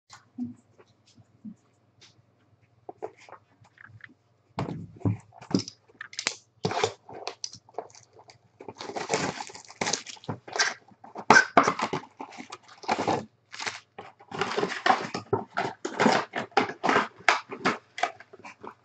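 Foil trading card packs being torn open and their wrappers crinkled, with cardboard boxes and cards handled: a busy run of sharp rips and crackles that starts about four and a half seconds in.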